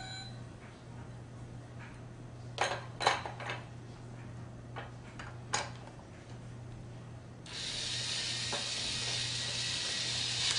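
Hard plastic toy parts clicking and knocking a few times, then about three-quarters of the way through a battery-powered toy drill starts up and runs steadily, driving in a wheel bolt on a take-apart toy fire truck.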